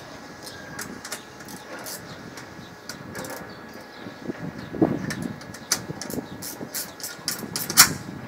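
Hand tools clicking and scraping on the metal access panel of a JBT unit as its fasteners are worked with a screwdriver. Scattered sharp clicks grow busier in the second half, and the loudest comes near the end.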